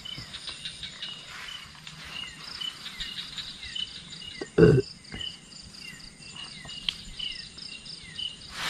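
Night insects, crickets among them, chirping in a steady pattern of short repeating pulses. A brief human vocal sound, such as a grunt, comes just past halfway.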